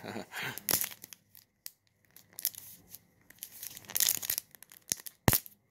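Packaging of a Peppa Pig sticker-and-tattoo pack crinkling and tearing in the hands, in short rustles with a few sharp clicks. The loudest click comes near the end.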